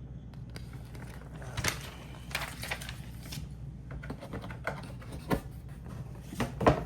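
Paper booklets and packaging being handled: irregular rustles and light clicks, with a sharper handling noise near the end.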